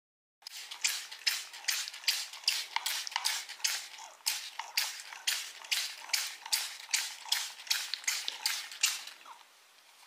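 Trigger spray bottle squeezed over and over: a fast run of short, sharp hissing sprays, about two or three a second, starting about half a second in and stopping shortly before the end.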